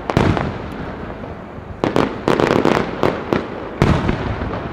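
Aerial firework shells bursting: a sharp bang right at the start, then a rapid cluster of five or six bangs from about two seconds in, each trailing off in a rolling echo.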